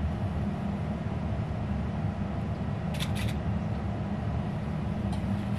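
Steady low background hum, with a short rustle of cotton shirting being handled and pinned about three seconds in.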